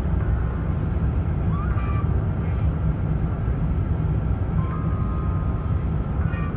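Cabin noise of an Airbus A350-1000 on final approach: a steady low rumble of airflow and engines heard from inside the cabin, with flaps extended for landing.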